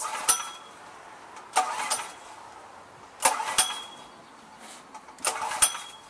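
Recoil pull-starter of a PowerWise 3500 portable generator yanked four times, each pull a short rasping whirr of the rope with the engine turning over. The engine does not catch: a no-start.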